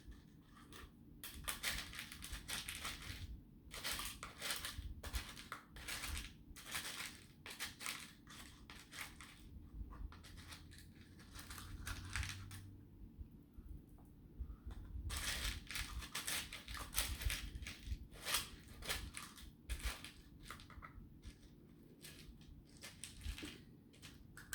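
Beads and their plastic containers being handled and rummaged through by hand: a dense run of small clicks, rattles and rustles, easing off briefly near the middle and again shortly before the end.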